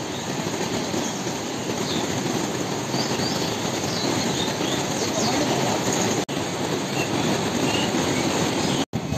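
River in heavy flood: fast, turbulent floodwater rushing in a steady roar. The sound cuts out briefly twice, about six and nine seconds in.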